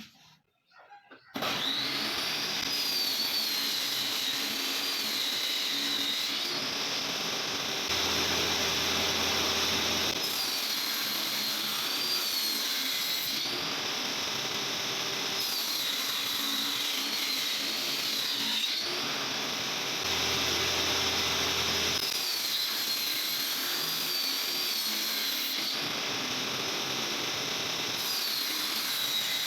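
Table saw running steadily with a high, wavering whine, starting about a second and a half in.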